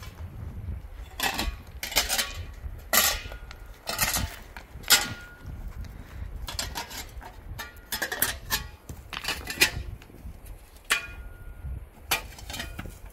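A metal digging tool striking stony ground again and again, each blow a sharp metallic clink on rock, irregular at roughly one a second, some ringing briefly.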